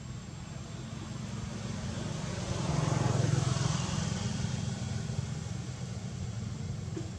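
A motor vehicle's engine running off-camera, with a steady low rumble that swells to its loudest about three seconds in as the vehicle drives past, then fades back.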